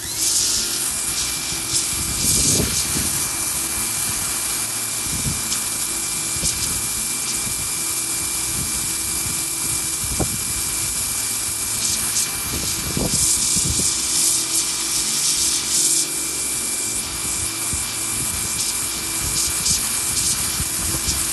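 Pressure washer firing through its 0-degree nozzle: a loud, steady hiss of the pinpoint water jet that starts suddenly, with a steady high tone running under it and a few short knocks.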